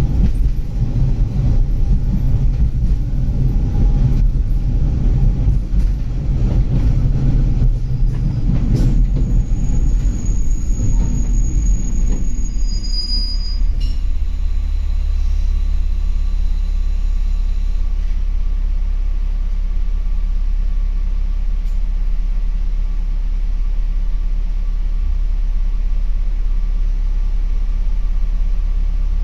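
Inside a diesel railcar: the rumble of wheels on rail as the train slows, with a high brake squeal for a few seconds around the middle, then the train stands still about halfway through and the diesel engine idles with a steady low hum.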